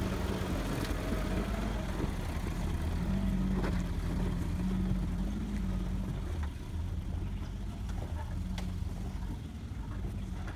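1985 Toyota Pickup 4x4's four-cylinder engine running steadily at low revs as the truck crawls up a rocky trail, growing fainter in the second half as it pulls away, with a few light knocks.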